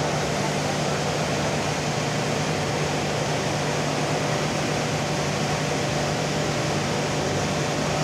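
Rotary aluminium melting furnace firing: its burner and combustion-air blower give a steady, even rush of noise with a constant low hum underneath.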